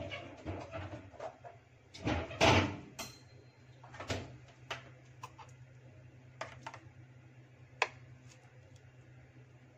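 Kitchen handling sounds: a brief clatter about two seconds in, then scattered light clicks and taps, including a fork against a plastic food-chopper bowl, over a low steady hum.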